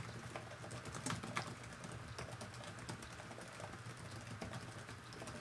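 Typing on a Lenovo Legion Y7000 laptop keyboard: a quiet, fast, irregular patter of key clicks.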